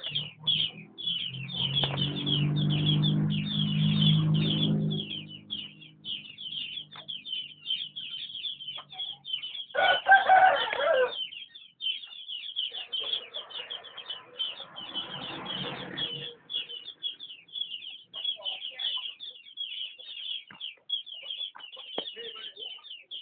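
Chickens squabbling: a continuous rapid high-pitched peeping throughout, with a lower drawn-out call in the first few seconds and a loud squawk about ten seconds in.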